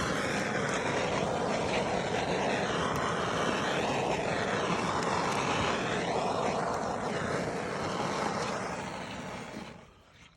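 Handheld gas torch burning with a steady hiss as it heats red lens repair tape to seal it down; the hiss dies away near the end.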